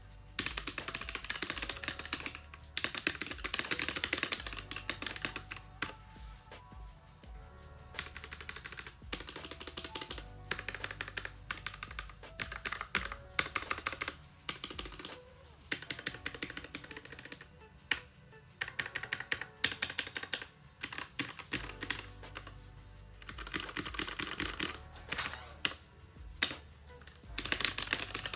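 Fast typing on a Keychron K6 65% mechanical keyboard with stock Gateron Red linear switches: rapid key clacks in bursts of two to three seconds with short pauses between. Soft background music plays underneath.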